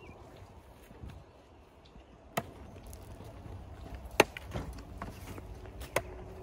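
Log Rite hookaroon's steel point swung into a large white oak round, giving several sharp chopping strikes, the loudest about four seconds in.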